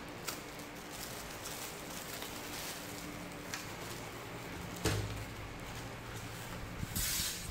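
Plastic wrapping crinkling and rustling as a bagged set of aluminium fan blades is handled and slid across a wooden table, with a thump about five seconds in and a louder burst of rustling near the end.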